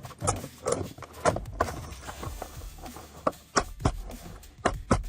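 Irregular knocks and clicks of plastic interior trim pieces being handled and fitted back into a car's centre console, about ten sharp strokes unevenly spaced.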